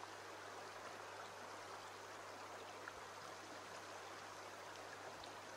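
Faint, steady running water of a shallow stream flowing over a stony bed, with a low steady hum underneath.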